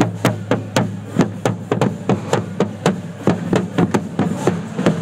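Marching drums playing a steady beat, about four strokes a second.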